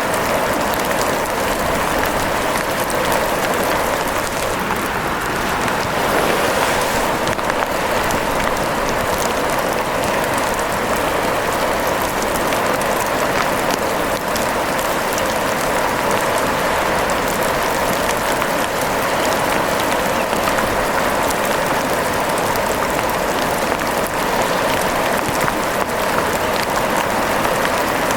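Steady rain, a dense even hiss with many fine drop ticks, unchanging throughout.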